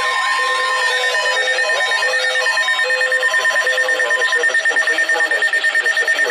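Several emergency alert tones sounding over one another: a steady high tone throughout, with lower tones switching on and off beneath it, and a fast pulsing beat from about halfway in.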